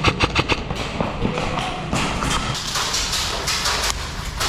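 A quick run of sharp clicks or knocks, about eight a second, lasting under a second, followed by a steady rustling hiss.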